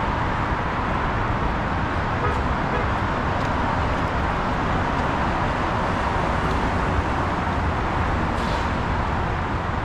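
Steady city road-traffic noise: a continuous rumble and hiss of cars on a multi-lane road.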